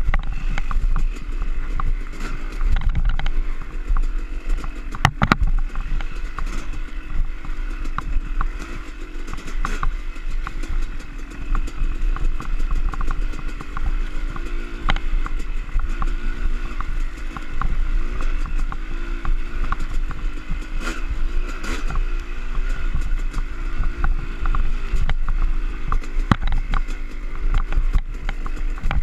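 Yamaha YZ250 two-stroke dirt bike engine, revving up and down continually as it is ridden along a rough trail, heard from a helmet-mounted camera. Frequent knocks and rattles from the bike come through, with one sharp knock about five seconds in.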